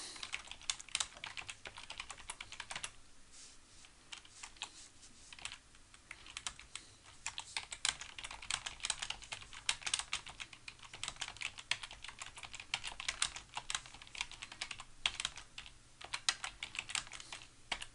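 Typing on a computer keyboard: a steady run of quick key clicks with a couple of brief pauses.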